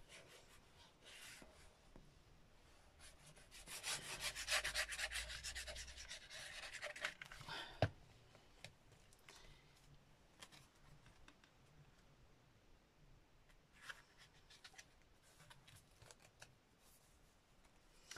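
Craft glue bottle's nozzle scratching and rubbing across grey cardstock as glue is squeezed out in lines, a dense scratchy run of a few seconds, then one sharp tap. Faint rustles of card being handled follow.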